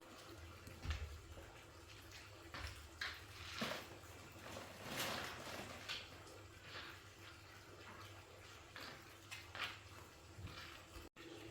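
Faint, scattered light clicks and taps, with a longer rustling scrape about five seconds in.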